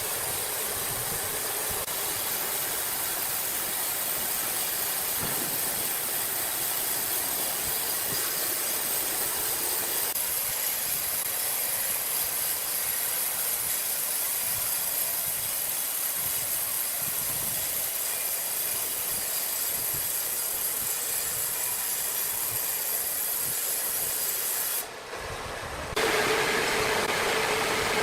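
Sawmill machinery running with a steady hissing noise, changing abruptly about ten seconds in; near the end it cuts out for a moment and comes back louder, with a steady hum added.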